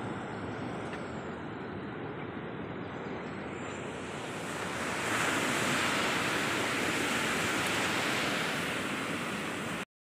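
Steady rushing noise of surf and wind on the microphone, growing louder about halfway through, then cutting off abruptly just before the end.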